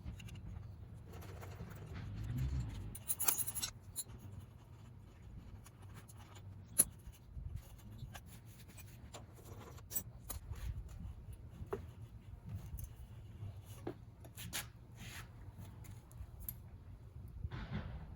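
Scattered small clicks, scrapes and rubbing of hand tools on metal as the bolts holding a dirt bike's slip-on exhaust muffler are undone and the muffler is worked loose. There is a louder scraping stretch about two to four seconds in.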